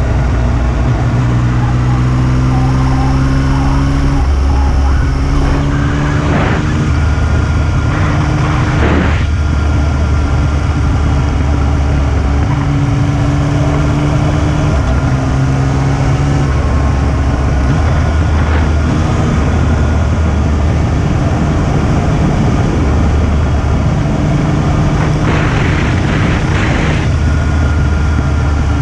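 Yamaha XSR900's three-cylinder engine running while the motorcycle is ridden, its pitch stepping up and down. When the throttle is closed it gives off a "fwoon" noise, which the owner takes for an abnormal engine noise.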